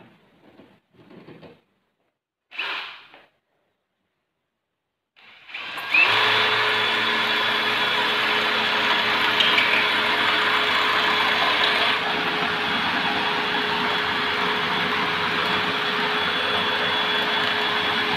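A few short knocks and clicks, then about five seconds in an electric power tool's motor spins up quickly and runs steadily with a constant whine.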